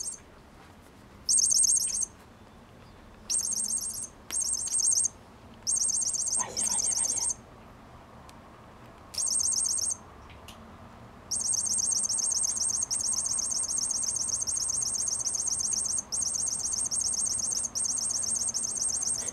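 High-pitched, rapid chirping trills. For the first ten seconds they come in short bursts of under a second, and from about eleven seconds in they run almost unbroken.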